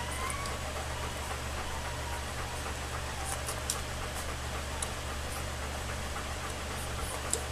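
Alaskan Malamute puppies nursing: a few faint, short suckling clicks over a steady low hum and hiss.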